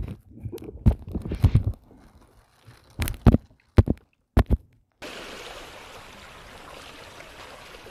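A few sharp knocks and bumps on the microphone, with short dead gaps between them. About five seconds in, the sound cuts abruptly to a steady wash of small waves lapping against shore rocks.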